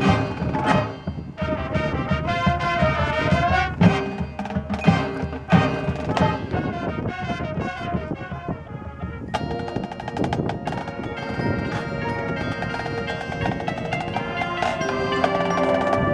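High school marching band playing its show: sharp percussion hits and quick runs of notes, then about nine seconds in the full band comes in on a dense held chord.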